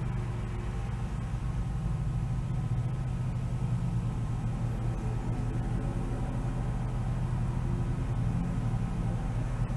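Steady low hum and rumble, even throughout, with faint steady tones above it.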